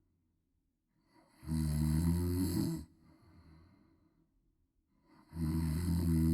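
A woman snoring loudly: two rasping snores about four seconds apart, each lasting just over a second, the first trailing off into a softer breath out.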